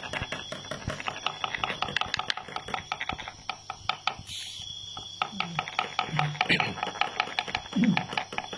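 Rapid, irregular clicking and scraping of wooden sticks worked against a wooden fighting log to rouse two rhinoceros beetles, with a short pause about four seconds in.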